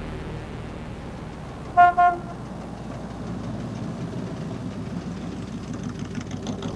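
A car horn honked in two quick toots about two seconds in, over a steady low rumble.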